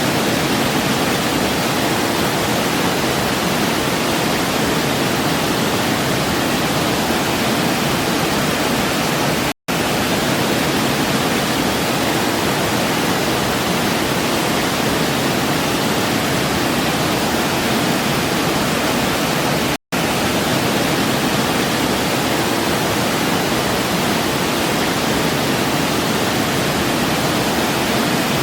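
Waterfall water rushing in a steady, even roar, broken twice by a split-second dropout to silence about ten seconds apart.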